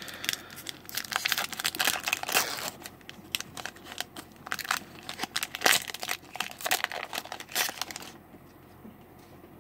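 A Magic: The Gathering Core Set 2020 booster pack's foil wrapper is torn open and crinkled by hand: a dense, irregular run of crackling that stops about eight seconds in.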